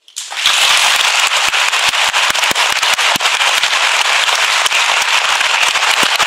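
Audience applauding the end of the piece: loud, dense clapping that swells up within half a second, with single sharp claps standing out.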